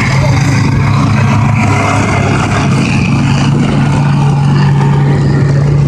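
Diesel engines of combine harvesters running steadily with a loud, constant low drone.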